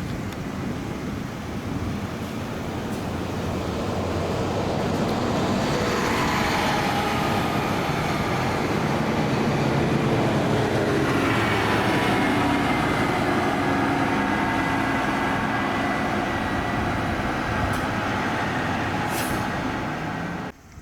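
Large diesel buses driving past one after another, engine noise building from about four seconds in, with whining engine tones joining around six and again around eleven seconds. The sound cuts off suddenly near the end.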